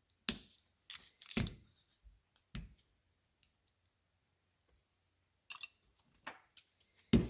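Small metal tool clicking and tapping against a carburetor throttle shaft while its circlip is pried off: a series of short, sharp clicks with gaps between them, the loudest near the end.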